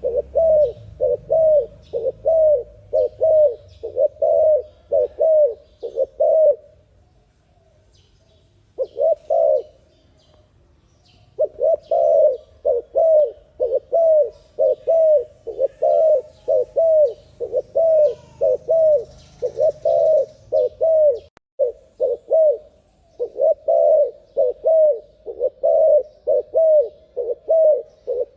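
A dove cooing in a fast, steady run of short notes, about two a second. There is a pause of a few seconds about a third of the way through, then the quick cooing resumes.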